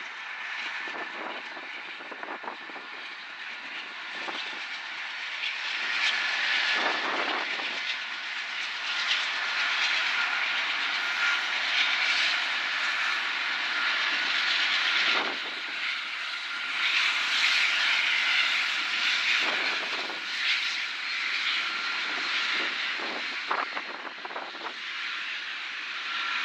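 Small multirotor drone's propellers running, a steady high-pitched whine that steps down in pitch partway through and swells and fades in loudness.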